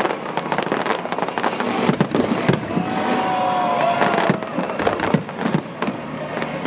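Aerial fireworks bursting overhead: a dense run of sharp bangs and crackles, with drawn-out whistle-like gliding tones now and then.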